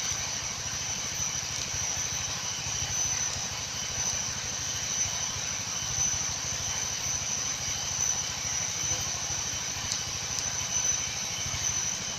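A steady, high-pitched insect drone over an even hiss, with a low rumble underneath.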